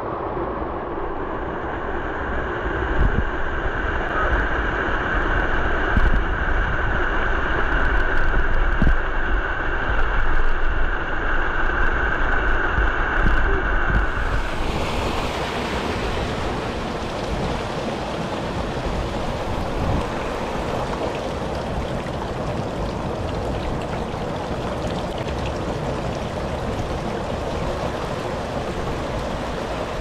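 Steady rush of a mountain stream pouring over cascades into a rock pool, with wind rumbling on the microphone. About halfway through the water sound turns brighter and hissier.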